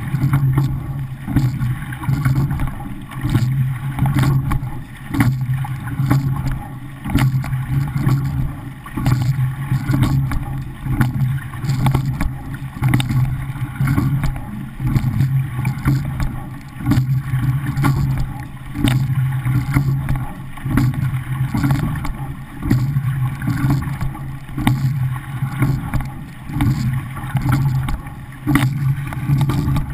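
Rowing shell (coxless pair) under way, heard from a camera on its deck: water rushing along the hull with wind on the microphone, swelling and fading with each stroke about every two seconds. A few sharp knocks come through now and then.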